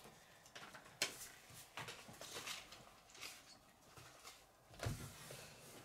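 Faint handling noises of a paper instruction booklet being closed and a cardboard box being moved, with a sharp tap about a second in and a dull thump near the end.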